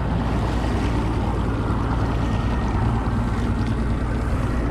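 A boat engine running steadily at low speed, with water rushing past the hull and wind on the microphone.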